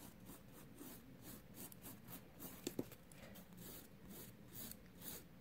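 Hand-held nail file rasping on a gel nail in quick, even, faint back-and-forth strokes, filing down the demarcation line of the old gel before a fill. A light click about halfway through.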